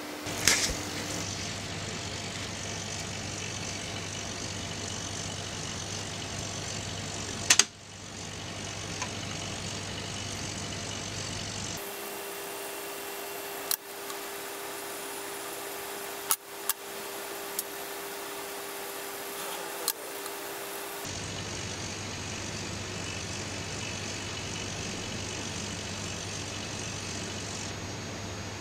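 Small electric motor of an automatic pet feeder running with a steady hum for several seconds in the middle, with a few sharp clicks, as the lid turns to open a food compartment. Around it is a steady low hum and hiss, with a couple of loud clicks near the start.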